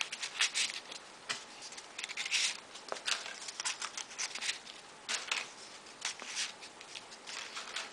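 Folded paper origami pieces being slid into place on a modular origami model: short, irregular papery rustles and scrapes.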